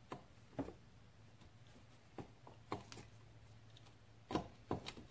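Several faint, short knocks and clicks of metal engine parts being handled as a cylinder is worked down over the piston and rings, the loudest pair about four seconds in, over a faint low hum.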